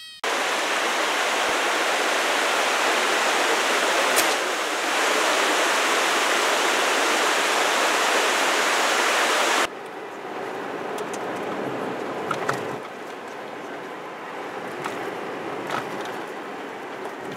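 A rocky mountain stream rushing, a loud even rush of water that cuts off suddenly about ten seconds in. After that comes quieter, steady road noise from inside a moving car, with a few light clicks.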